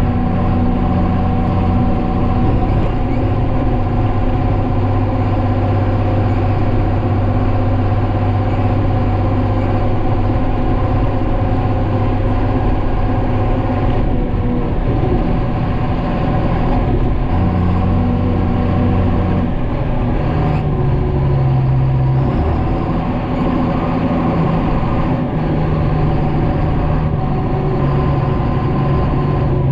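John Deere 9500 combine running steadily while harvesting soybeans: a constant drone of engine and threshing machinery, its lower tones shifting in pitch a few times.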